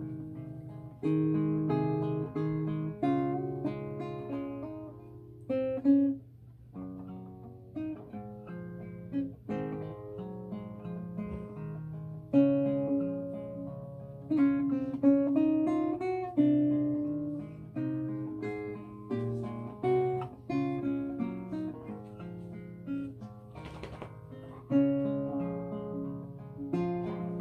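Nylon-string classical guitar played fingerstyle: single plucked notes and chords that start sharply and ring away, in phrases with short pauses between them.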